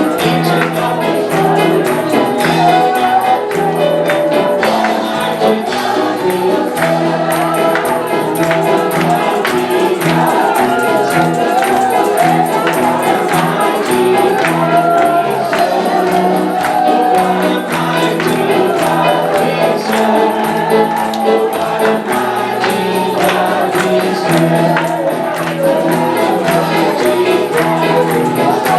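Congregational gospel worship music: a choir and congregation singing over a band with a steady bass line and a tambourine shaking throughout.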